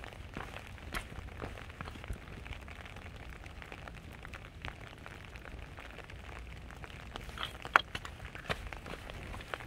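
Rain falling, with irregular drips and taps landing close by over a low steady rumble; one sharper, louder tap comes near the end.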